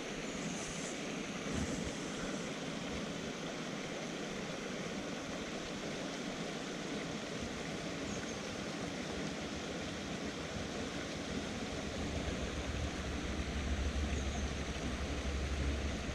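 A small rocky stream running over stones: a steady rush of water. A low rumble joins it about three quarters of the way through.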